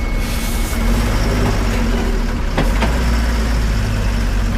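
Heavy road vehicle's engine running with a low, steady drone, and two short clicks about two and a half seconds in.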